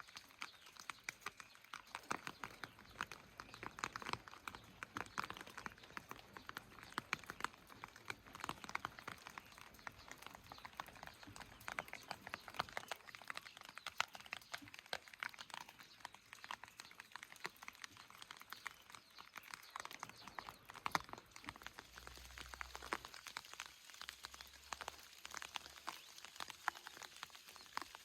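Rain falling, with many separate drops tapping close by at an irregular rate over a light hiss.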